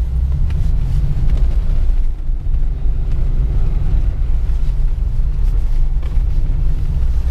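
Steady low rumble inside the cab of a 1988 Toyota 4Runner under way on snow, from its 3VZ-E 3.0 L V6 engine and drivetrain.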